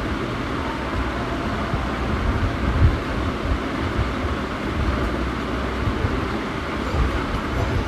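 Vermicelli-coated cutlets shallow-frying in a pan of hot oil: a steady sizzle over a low, uneven rumble.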